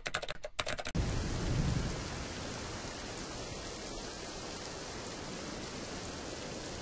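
Fast clicking like typing for about the first second, then steady heavy rain begins with a low rumble of thunder as it starts, the rain running on evenly.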